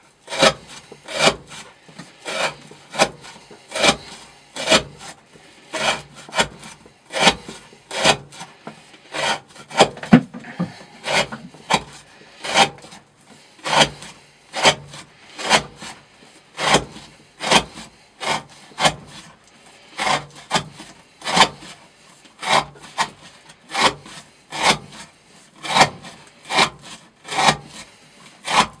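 Knife blade slicing through 20 mm rope, one short rasping cut after another, a little more than one a second, in a rope-cutting test of the edge's wear resistance.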